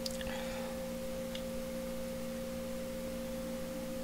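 A steady background hum made of a few fixed tones, one higher tone standing out, unchanging throughout; two faint light clicks, near the start and about a second and a half in.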